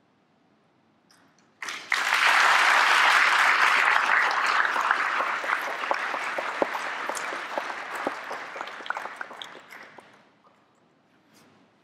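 Audience applauding in a large hall. It starts suddenly about a second and a half in, stays loud for several seconds, then fades away near the end.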